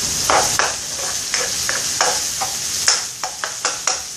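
Diced onions and garlic sizzling in oil in a nonstick frying pan, with a spoon scraping and tapping against the pan as they are stirred. The scrapes come irregularly, quicker near the end.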